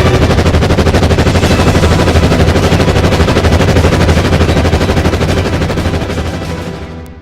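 Machine-gun sound effect: continuous rapid automatic fire over a steady low rumble, fading out near the end.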